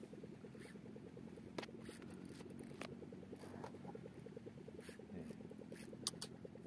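Boat engine idling with a fast, even low pulse, and a few sharp clicks scattered over it.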